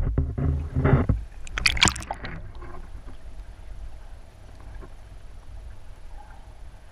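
Water noise heard through an underwater camera: several splashes and bubbling knocks in the first two seconds, then a steady low underwater rumble.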